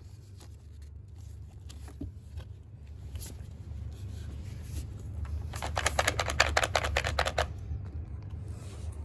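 Plastic frame parts of a folding baby high chair being handled: scattered light clicks, then a fast rattling run of clicks, about eleven a second, lasting nearly two seconds a little past the middle. A steady low hum runs underneath.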